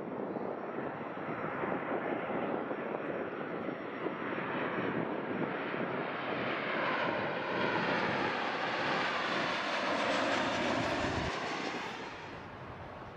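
Boeing 737 airliner on final approach with gear down, its twin jet engines making a rushing noise that grows louder as it passes close by, with a slow sweeping, phasing tone. The sound drops away abruptly near the end.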